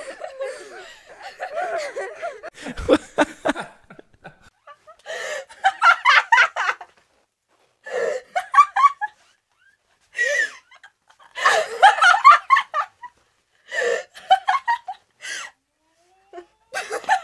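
Laughter in repeated bursts, each a second or two long, with complete silence between them.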